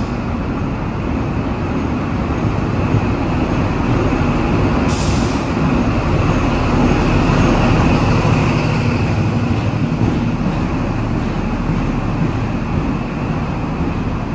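NSW TrainLink XPT diesel-electric train pulling out, with a steady rumble of carriages rolling past. It grows loudest as the rear diesel power car goes by, at about eight seconds, then eases as the train draws away. There is a brief hiss about five seconds in.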